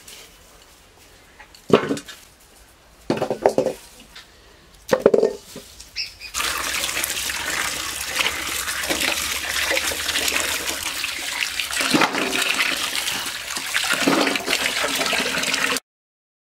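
Taro corms dropped into a steel bowl with a few separate knocks. About six seconds in, running tap water starts pouring into the bowl as the corms are scrubbed and turned over by hand. The water cuts off suddenly near the end.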